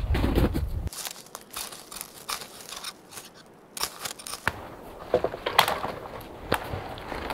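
Boots crunching through snow briefly at the start. Then dry wood shavings rustle and crinkle with small sharp clicks as a knife works at a pile of feather-stick curls. About four and a half seconds in, dead branches start knocking and crackling as poles are dragged from a deadfall.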